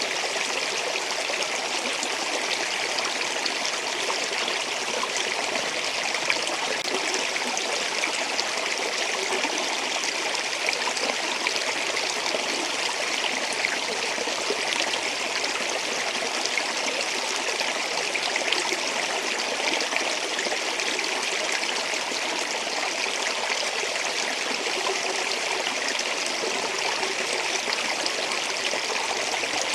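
Water of a stream flowing steadily over rocks: an even, unbroken rushing with fine trickling and splashing, mostly high in pitch with little low rumble.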